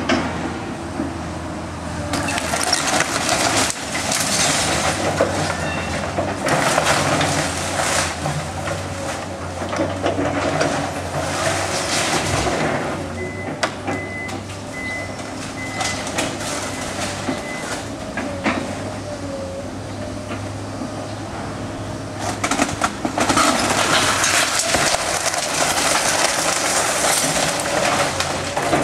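Excavator's diesel engine running steadily while a wooden house is torn down, with repeated spells of cracking, splintering timber and crashing debris that are loudest near the end as the house collapses. A short run of high beeps sounds around the middle.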